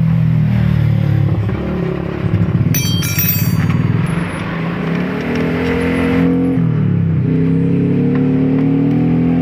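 Automatic scooter's engine and CVT transmission running on the centre stand, revved up and let back down twice, the pitch rising and falling each time, with a brief high metallic ringing about three seconds in. The scooter is being checked for a 'kletek kletek' clatter from the CVT.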